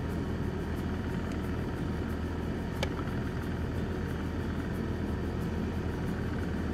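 A steady low engine hum, like an idling vehicle, with a single faint click about three seconds in.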